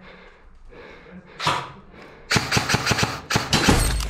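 Airsoft gun fire: two quick runs of rapid, evenly spaced shots in the second half, after a single short burst of noise about a second and a half in.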